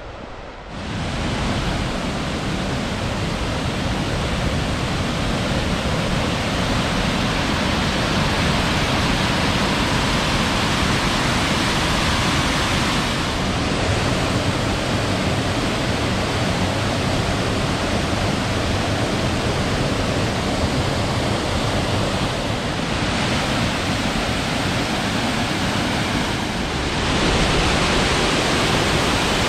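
Waterfall pouring: a loud, steady rush of water that sets in about a second in and shifts slightly in tone a few times.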